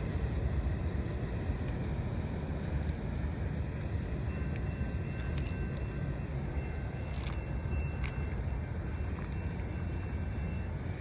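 Norfolk Southern freight train rolling past: a steady low rumble of wheels on rail. Faint, thin, high-pitched squeals come and go from about four seconds in.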